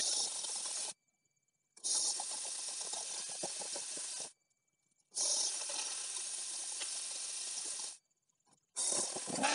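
Electric angle grinder fitted with a chainsaw bar-and-chain attachment cutting into a log, heard as four bursts of steady hissing noise, each starting and stopping abruptly with silence between.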